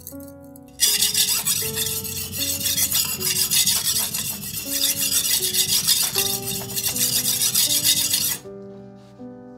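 Shun kiritsuke knife blade scraping across a whetstone in quick, rapid back-and-forth sharpening strokes. The strokes start about a second in and stop shortly before the end, over slow piano music.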